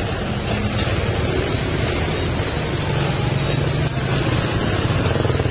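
Heavy monsoon rain pouring and strong wind buffeting the microphone, over the low running of motorcycle and car engines in slow traffic.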